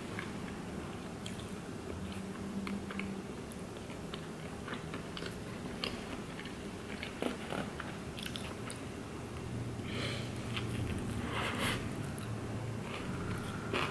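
A person chewing a mouthful of burrito close to the microphone, with many small wet mouth clicks. About ten seconds in, a fresh bite into the burrito brings a denser run of louder clicks and crunching.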